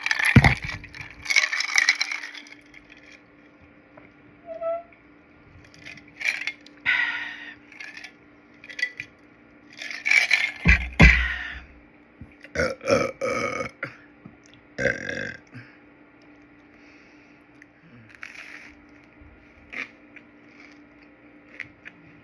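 A person burping, several separate short burps spaced out over the stretch, the biggest about ten to eleven seconds in; small, weak burps.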